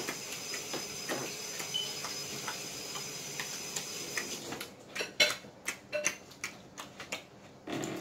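Close-up eating sounds from people chewing shrimp: wet chewing and lip smacks, with a run of sharper, louder smacks in the second half.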